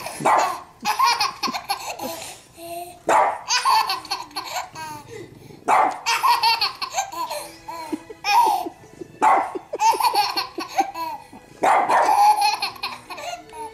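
Baby laughing hard in repeated bouts of giggles and belly laughs, with short barks from a French bulldog between them.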